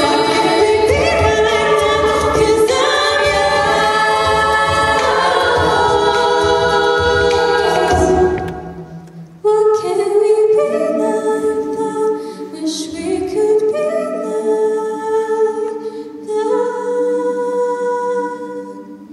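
All-female a cappella group singing full chords over a pulsing low beat. About eight seconds in the sound falls away briefly, then the voices return in soft, long-held chords without the beat.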